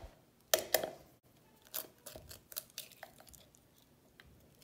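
An eggshell being cracked against a plastic cup: two sharp taps, then a run of small crackles as the shell is pried open.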